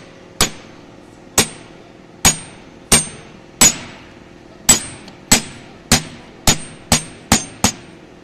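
Hammer blows on a steel pipe used as a drift, driving a shaft seal down into a water pump housing: about a dozen sharp metallic strikes, each with a short ring, coming faster toward the end.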